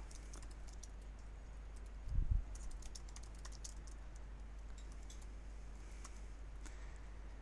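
Computer keyboard typing a short sentence: a run of light, quick key clicks from about a third of the way in until near the end. A dull low thump comes just before, about two seconds in, over a steady low hum.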